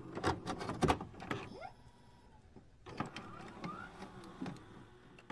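Faint electronic glitch sound effects: scattered clicks and short sliding chirps, with a gap of near silence in the middle.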